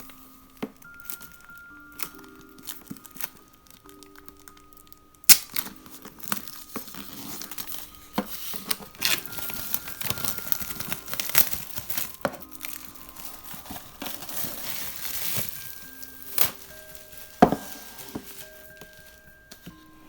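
Packaging being crinkled and torn open by hand, quiet with a few clicks at first, then busy rustling and ripping from about five seconds in, with sharp snaps now and then. Soft background music with held notes plays underneath.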